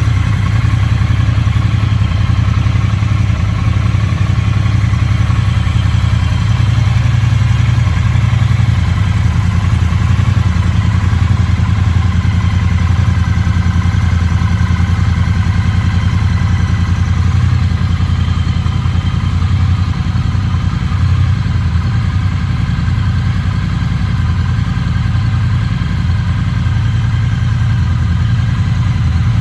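2021 Triumph Bonneville T100's 900cc vertical-twin engine, with its 270-degree firing order, idling steadily without being revved.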